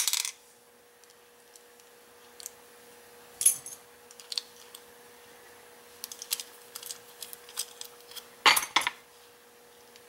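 Small metal clicks and clinks from a security screwdriver with a star-shaped bit working the screws out of the back of a padlock. There is a sharp clatter at the start, a single click a few seconds in, a run of light ticks, and the loudest metallic clatter near the end.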